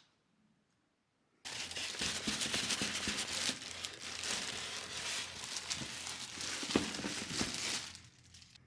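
Plastic packaging crinkling and crackling as it is handled. It starts abruptly about a second and a half in and dies down near the end.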